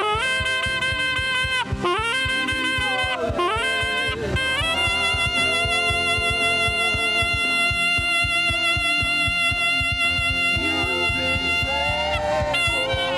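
Saxophone playing a slow worship melody with vibrato, sliding between notes and holding one long note for most of the middle, over a backing accompaniment.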